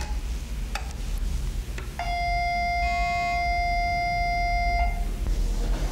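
Fax machine connecting after its start button is pressed: a click or two, then about two seconds in a steady high tone lasting about three seconds, with a short beep over it near the middle. These are fax handshake tones over the phone line.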